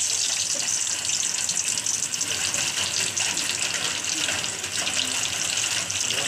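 Semolina-coated pomfret deep-frying in hot oil, a steady, even sizzle.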